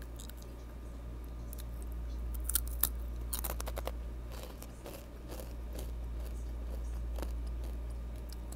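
Close-up crunching and chewing of Takis rolled corn tortilla chips, with a run of sharp crunches about two and a half to four seconds in and softer chewing crunches after. A steady low hum runs underneath.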